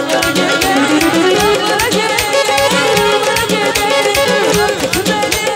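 Live wedding band playing fast Azerbaijani folk dance music: electric guitar and keyboard carry a bending melody over a steady, quick drum beat.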